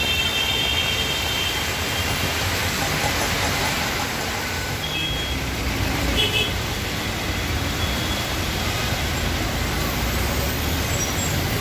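Heavy rain pouring down on a busy road as traffic drives through it: a steady hiss of rain and wet tyres over a low rumble of engines. Vehicle horns toot briefly near the start and twice around the middle.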